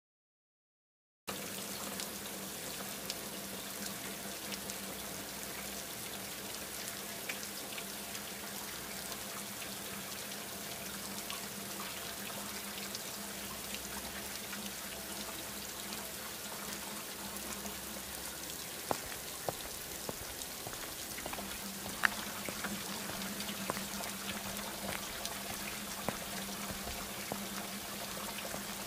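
Steady rain-like hiss with scattered small ticks and a low hum underneath, starting about a second in after silence.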